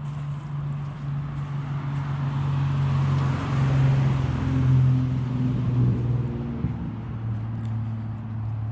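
String trimmer running steadily, its pitch dipping and shifting a few times, while a passing vehicle swells up and fades away in the middle.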